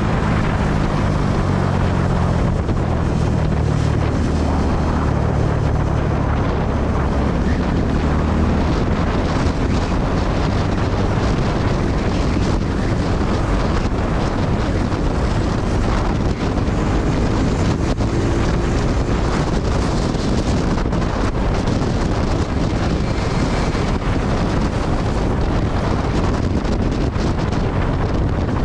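Suzuki Gixxer 250's single-cylinder engine running at road speed, its note rising and falling during the first ten seconds or so, under steady heavy wind noise on the microphone that covers it for the rest of the ride.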